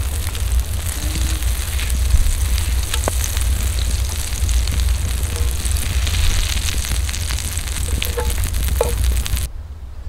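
Food frying in oil in a black cast-iron pan over a campfire, sizzling steadily while a wooden spatula stirs it, with scattered scrapes and taps on the pan. The sizzle cuts off abruptly near the end.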